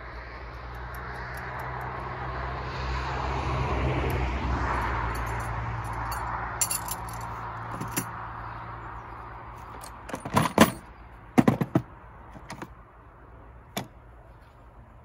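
Gear being handled in a plastic tool case: several sharp clinks and clatters a little after the middle, with another near the end. Before them a low steady rumble swells and fades.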